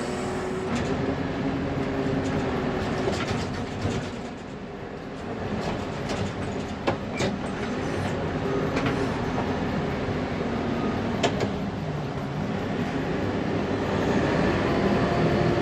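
1999 Fermec TLK760 backhoe loader's diesel engine running under load while loading dirt, heard from inside the cab, its pitch rising and falling with the throttle. A few sharp clanks come through, and the engine revs up near the end.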